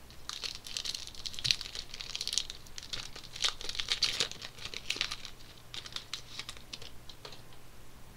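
A hockey card pack's wrapper being torn open and crinkled in the hands, with crackling rustle in clusters, heaviest in the first half.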